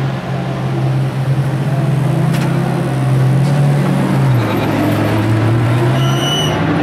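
Race car engine running steadily at low revs in the pit lane, its pitch dropping a step about four seconds in. A brief high-pitched squeal comes near the end.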